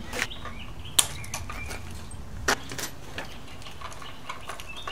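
Sharp clicks and snaps of hand tools and electrical wire being worked in a wall switch box, as the black wire to the light is cut and capped; the loudest snap comes about a second in, another about two and a half seconds in.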